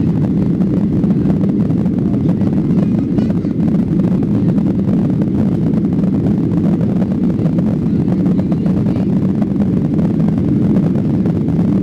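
Steady cabin noise inside a Boeing 737-800, heard from a window seat near the rear: an even, low rush of its CFM56 engines and airflow, with no change in pitch or level.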